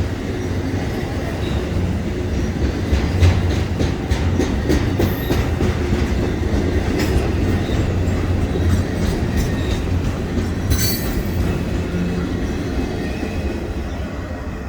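Freight train cars rolling past, a steady rumble with irregular clicks and clanks from the wheels over the rail joints, easing off near the end.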